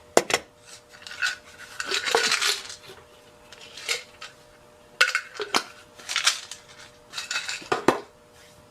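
Small metal screws and a screwdriver clicking and clinking against a radio's metal chassis as screws are worked out and set down, in irregular sharp taps and short rattles.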